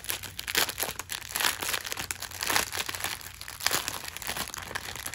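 Clear plastic bag of diamond-painting special drills crinkling and rustling in irregular handfuls as it is handled and opened.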